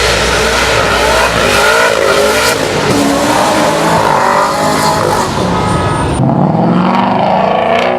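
Car engine revving hard and accelerating, its pitch rising and falling, over loud tire and exhaust noise.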